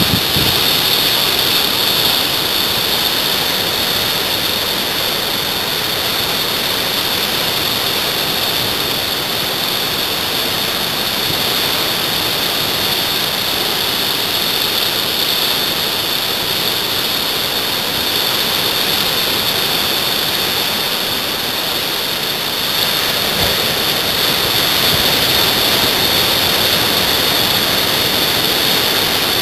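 Steady rushing wash of ocean surf, rising slightly about three-quarters of the way through.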